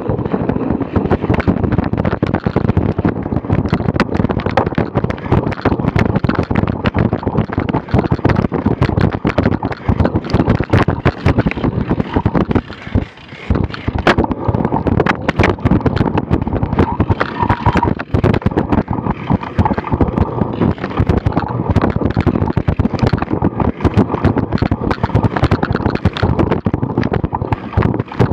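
Wind buffeting the microphone and a steady rattle of knocks from a cyclocross bike and its mounted camera jolting over a bumpy grass course, with a brief lull about halfway through as the rider slows.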